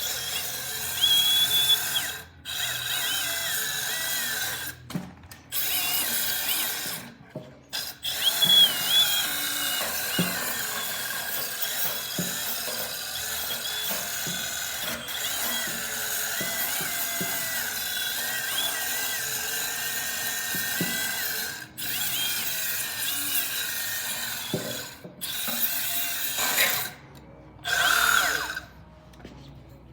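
Milwaukee 2531-20 1/2-inch by 18-inch band file running, its sanding belt grinding on a steel axle shaft that has a seized bearing on it. The grinding and whine come in long runs, broken by several short stops where the tool is let off.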